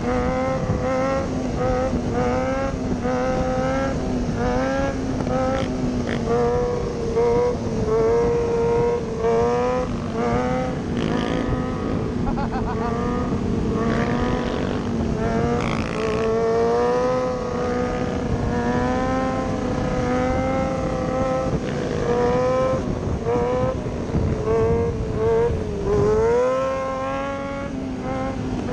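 Motorcycle engines running at riding speed, the pitch wavering up and down with throttle changes over a steady rushing noise. Near the end the pitch dips, then climbs sharply.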